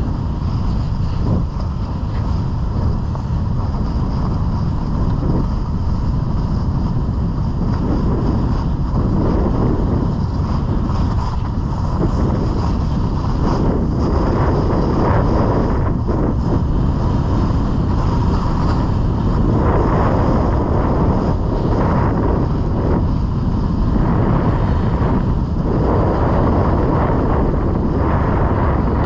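Wind buffeting a GoPro's microphone on a run down a groomed ski slope, with edges scraping over packed snow in swells that rise and fall every second or two.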